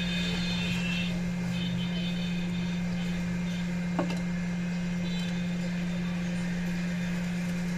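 A steady low hum from a machine or electrical equipment, with a single sharp click about four seconds in.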